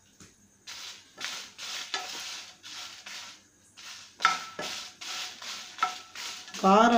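Dried red chillies being stirred and scraped with a wooden spatula in a dry nonstick pan, roasting without oil: a run of short scraping strokes, about two to three a second, starting about a second in.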